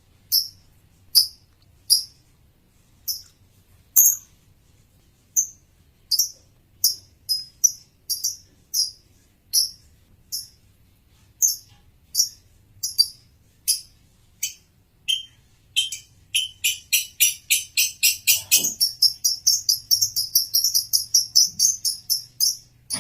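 Male lovebird chirping: short, shrill chirps that come about one a second at first, then speed up into a fast, even run of chirps, several a second, over the last several seconds.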